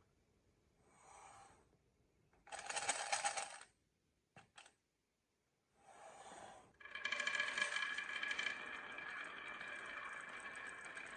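Marbles rolling and rattling along a marble run track in several short runs with a few sharp clicks. About seven seconds in, a continuous roll begins with a steady ringing tone, like a marble spinning or rolling in a resonant chute.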